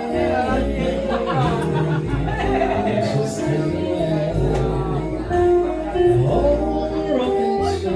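Live band playing a slow blues song: a lead line with bending notes over a steady bass line.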